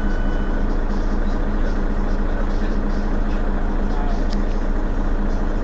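Mercedes-Benz Citaro Facelift city bus standing still with its engine idling, a steady, even engine hum.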